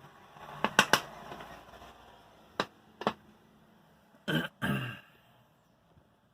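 Sharp metallic clicks and knocks from a worn stabilizer link (bieleta) being worked by hand: three close together about a second in, two more around three seconds, then two longer, duller knocks just after four seconds. The link's lower ball joint is worn out and has play.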